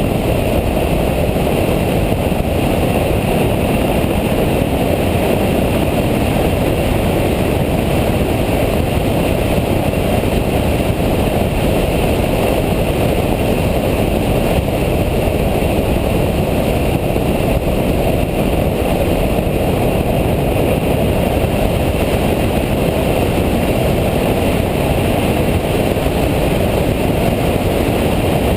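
Steady rumbling of a Nissan Nismo car heard from inside the cabin while driving: engine, tyre and wind noise run together at a constant level, with no distinct revs or gear changes standing out.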